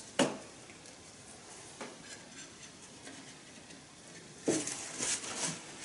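Light clicks and taps of small wooden trim segments and a glue bottle being handled at the rim of a segmented wooden bowl: one sharp tap just after the start, a faint one near two seconds in, then a quick cluster of clicks about four and a half to five and a half seconds in.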